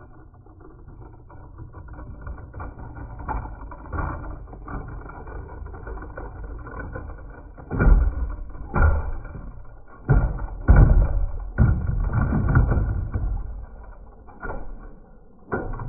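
Irregular knocks and thumps on wooden deck boards and a plank ramp, as toy monster trucks are handled, over a low rumble. The knocks come thickest and loudest in the middle of the stretch.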